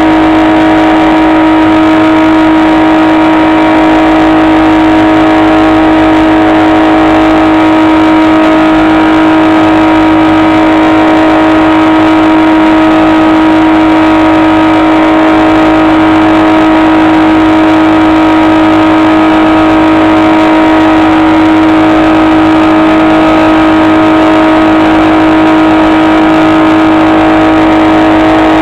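Steady, loud electric whine and hum of a HobbyKing SkyEye model plane's onboard FPV audio, a single pitch with many overtones that holds without change.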